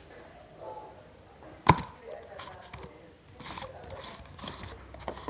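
Objects being handled at close range: one sharp knock about a second and a half in, then a few light clicks and rustles.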